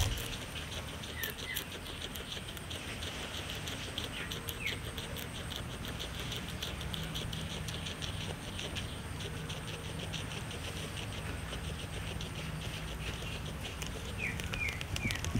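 Guinea pig chewing fresh para grass: rapid fine crunching clicks that ease off in the middle and pick up again near the end.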